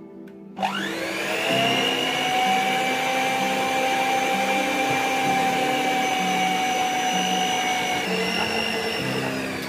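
Electric stand mixer's motor starting about half a second in with a rising whine, then running steadily as its spiral dough hooks knead spelt flour and water into a bread dough. Its pitch shifts slightly near the end.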